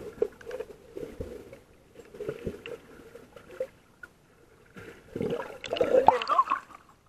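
Muffled water sloshing and gurgling around a camera held underwater, with a louder burst of splashing about five to six and a half seconds in.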